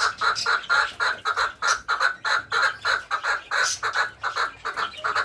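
Chukar partridge calling: a steady run of short, rapid chuck notes, about five a second.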